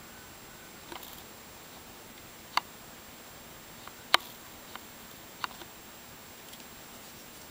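Light, sharp plastic clicks and taps from injection-moulded model kit sprues being handled, about five in all, the loudest about four seconds in, over a steady hiss.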